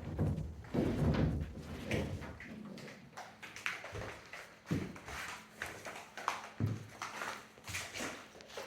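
Irregular knocks, thumps and scraping from building materials being handled, with no steady rhythm.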